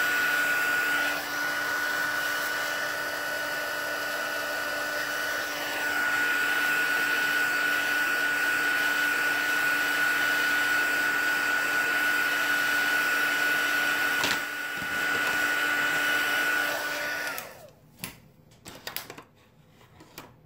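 Handheld embossing heat tool blowing steadily with a high whine, drying wet watercolour ink on a card. Its sound dips briefly twice as it is moved, then cuts off suddenly about 17 seconds in, followed by a few light knocks.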